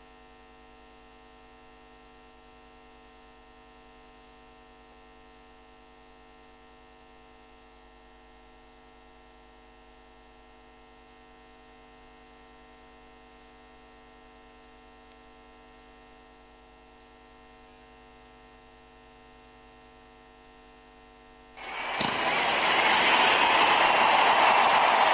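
Steady electrical mains hum from the sound system, a stack of unchanging tones. Near the end, loud crowd noise swells up suddenly and keeps going.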